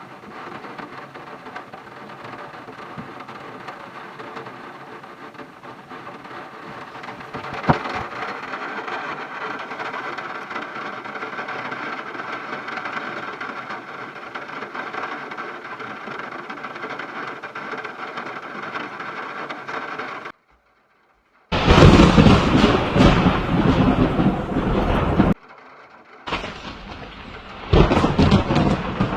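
Storm noise of a severe thunderstorm squall: a steady hiss of heavy rain and wind, with one sharp crack about eight seconds in. After a sudden short break, two much louder stretches of storm noise start and stop abruptly.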